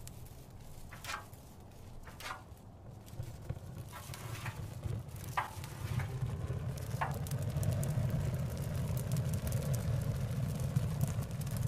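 Low, steady rumble like road traffic, growing louder about six seconds in. A few short, high-pitched chirps or squeaks come in the first half.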